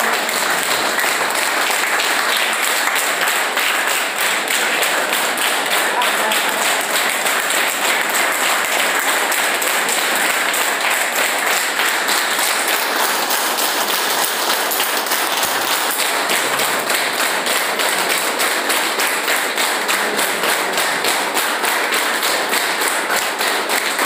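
A group of people clapping their hands together in a fast, steady, unbroken run, as a group clapping exercise.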